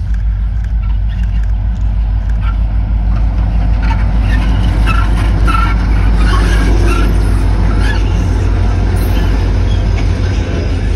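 Two diesel-electric freight locomotives, a G class and an XR class, hauling a grain train past at close range. A heavy engine rumble builds to its loudest as they go by about six seconds in, with wheel and rail clatter, then the grain wagons roll past.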